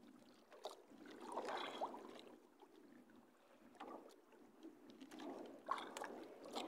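Faint water lapping against the hull of a small outrigger boat, swelling about a second in and again near the end, with a few small clicks.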